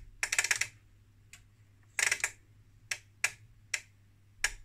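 Relays in an IMPO ES 11.17 lab power supply clicking as the DC output voltage is turned up, switching the transformer taps: two quick clattering runs of clicks, then four single clicks about half a second apart.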